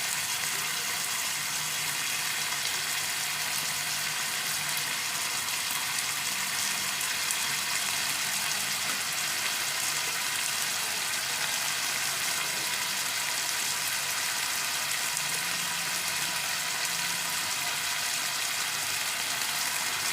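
Chicken pieces and sliced onion sizzling steadily in hot oil in a pan.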